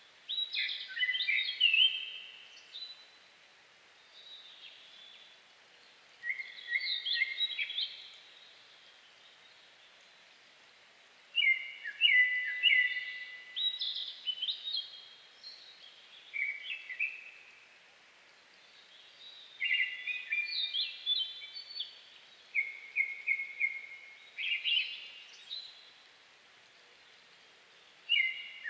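A Japanese thrush singing: short phrases of quick, clear whistled notes, some ending in a run of repeated notes, delivered every few seconds with pauses between, over a faint steady forest background.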